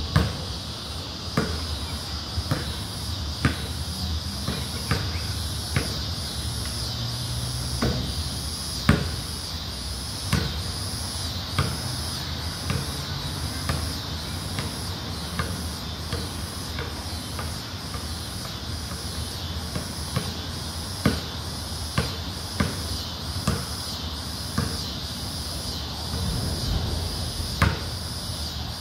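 A basketball bouncing on a concrete court: single sharp thuds about once a second, with pauses between runs. Under them runs a steady high insect chorus with a faster pulsing trill above it.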